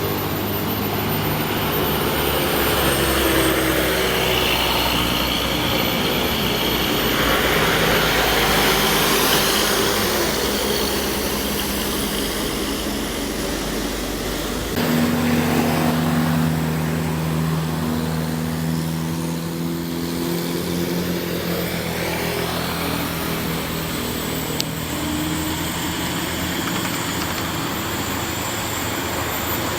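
Heavy truck engines running slowly on a steep climb, a steady low engine drone. About halfway through the sound changes abruptly, as a different engine note takes over.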